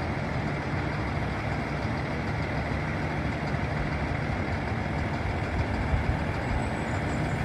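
Diesel engines of garbage trucks idling steadily, a constant low engine sound.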